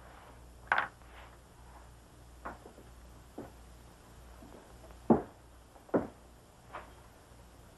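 About half a dozen soft, scattered knocks and thuds, the loudest a little past halfway and another about a second later, over the steady hiss and low hum of an old film soundtrack.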